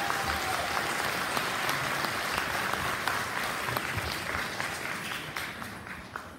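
Audience applauding, many hands clapping at once, the clapping dying away near the end.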